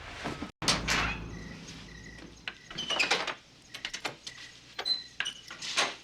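A film soundtrack's sound effects: a run of irregular knocks and clicks with a few short squeaks or creaks, and a brief cut to silence about half a second in.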